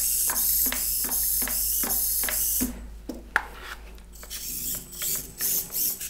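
Tiny motor and gears of an SNT Q25 micro RC car whirring in a high-pitched whine with a string of quick clicks for the first couple of seconds. Near the end it comes in short bursts as the throttle is pulsed.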